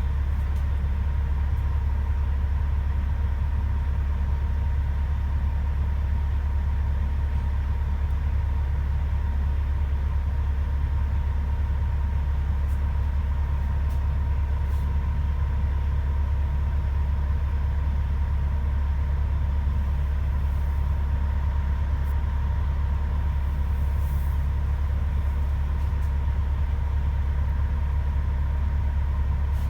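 Truck engine idling steadily at about 700 rpm, a constant low drone with a faint steady high hum over it.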